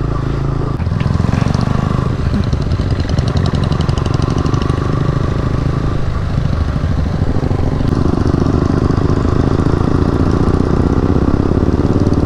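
KTM RC 200's single-cylinder engine running under way, heard from the rider's seat. Its note picks up about a second in.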